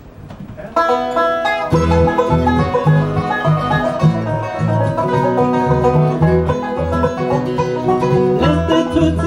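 Bluegrass band playing an instrumental intro, banjo picking over guitar, starting sharply about a second in. A steady low bass part joins shortly after.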